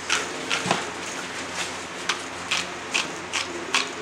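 Dry spice seasoning being worked into a bowl by hand: short, crisp rasping strokes about twice a second.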